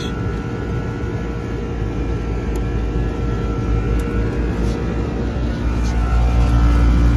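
Carrier two-stage commercial condensing unit running on first stage: compressor and condenser fan give a steady mechanical hum and rumble. The low rumble grows louder near the end.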